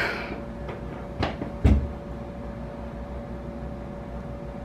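A short hiss at the start, then two sharp clicks about half a second apart, the second with a dull thump, over a faint steady hum.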